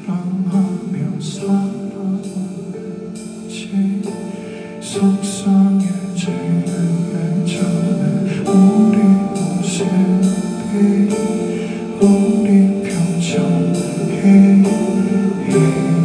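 Live band music: a man singing over a semi-hollow electric guitar, with drums keeping a steady beat on the cymbals.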